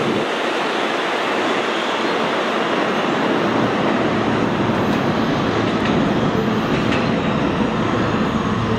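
R160 subway train pulling out of the station and running off into the tunnel: a loud, steady noise of wheels on rail.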